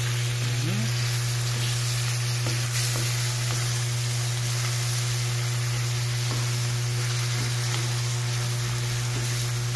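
Raw chicken pieces sizzling in hot oil in an aluminium wok as they are turned with a wooden spatula, with a few light scrapes of the spatula, over a steady low hum.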